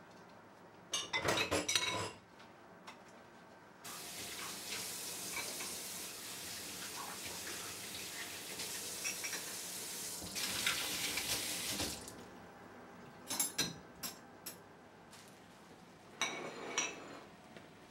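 Dishes being washed by hand at a kitchen sink: a brief clatter of crockery, then a tap running into the sink for about eight seconds, followed by a few sharp clinks of ceramic mugs and plates set down on a wire dish rack.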